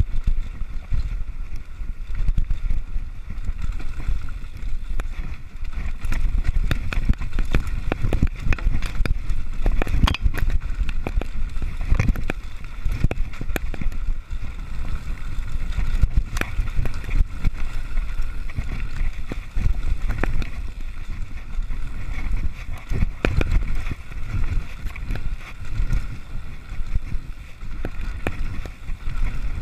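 Mountain bike descending a rough trail at speed: a continuous low rumble of tyres on stones and dirt and wind on the microphone, with frequent sharp knocks and rattles from the bike over rocks.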